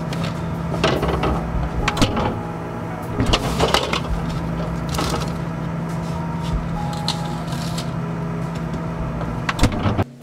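Rummaging through a refrigerator: jars and food containers clinking and clattering against glass shelves, with rustling in between, over a steady low hum. The sound drops off suddenly near the end.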